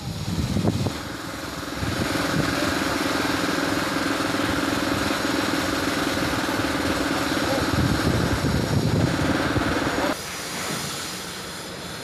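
Small delivery truck's engine running as it reverses, a steady drone that cuts off suddenly about ten seconds in as the truck stops.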